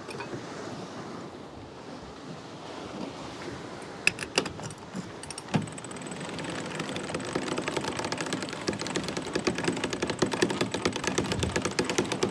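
Deck winch being cranked with a winch handle: its pawls click rapidly as the line is wound in, starting about six seconds in and getting louder until it stops at the end. A few separate clicks and knocks come about four seconds in, over steady wind and sea noise.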